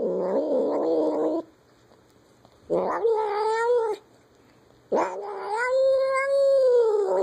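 A cat yowling: three long, drawn-out wails with short pauses between them. The third wail is the longest and is still going at the end.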